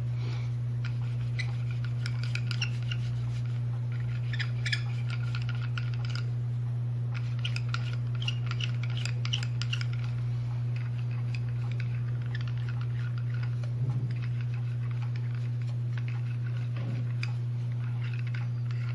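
Soft scratchy, crackling strokes of a small foam roller spreading varnish over a napkin-decoupaged plaque, coming in clusters with short pauses, over a steady low hum.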